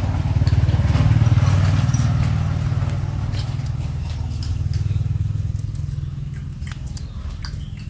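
An engine running, loudest about a second in and slowly fading away over the following seconds, with a few faint clicks on top.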